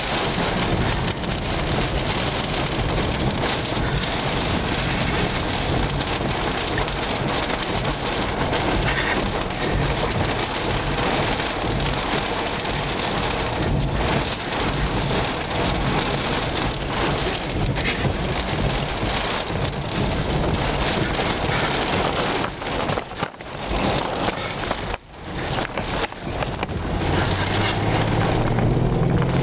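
Steady, loud storm noise of heavy rain and wind in a severe thunderstorm, with two brief dips about 23 and 25 seconds in. A low rumble joins near the end.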